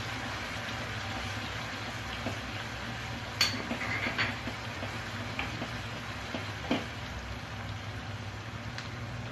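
Spices frying in hot oil in a pan, with a steady sizzle, and a few sharp knocks of the stirring spoon against the pan; the loudest knock comes about three and a half seconds in.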